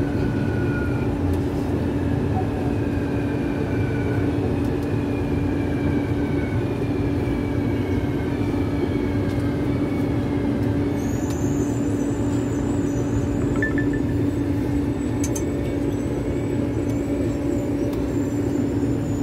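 Cabin noise of a medium-capacity steel-wheel-on-steel-rail metro train running: a steady hum, with whines falling in pitch in the first few seconds and a high whine coming in about eleven seconds in as the train slows for the next station.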